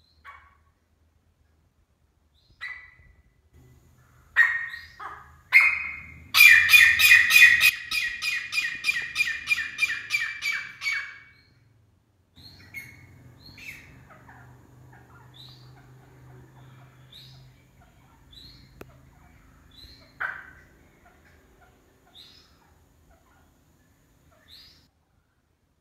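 Caged grey francolin calling: a few single sharp notes, then a loud run of about twenty quick repeated calls lasting some five seconds, then quieter scattered short notes.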